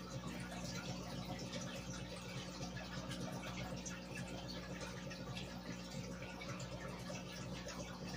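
Aquarium air bubbles from sponge filters rising and popping at the water surface, a steady trickling and crackling, over the constant low hum of the air pump driving them.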